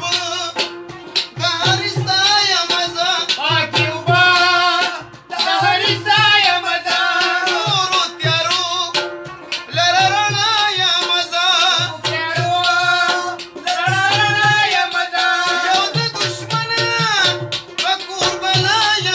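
Pashto folk music: a voice singing with heavy vibrato over a rabab and tabla, the tabla's deep bass drum striking a steady beat.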